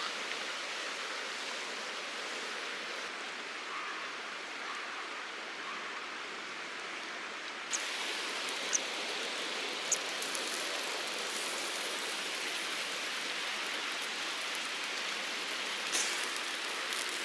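Mountain stream water rushing steadily, with a few sharp clicks scattered through it.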